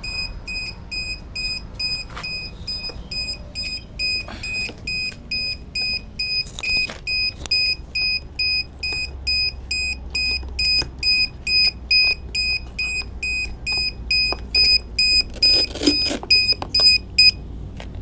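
Small electronic buzzer beeping steadily, about two and a half high beeps a second, with light clicks and knocks of handling, then cutting off suddenly near the end.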